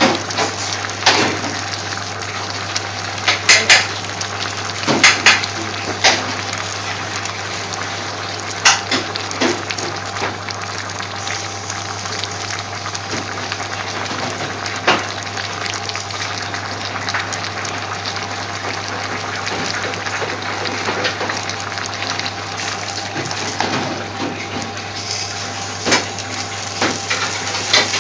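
A pot of vegetables for Indian base gravy at a rolling boil: steady bubbling with irregular pops of bursting bubbles, over a low steady hum.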